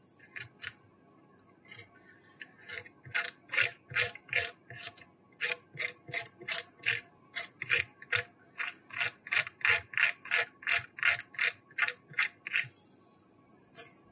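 Metal blade scraping and chipping shattered, laser-loosened rear glass off an iPhone X, in short, sharp strokes about three a second. The strokes start about two seconds in and stop near the end.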